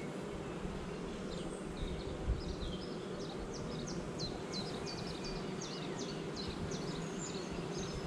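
Steady buzzing hum of a honeybee colony in an opened hive, with a comb frame covered in bees lifted out of the box.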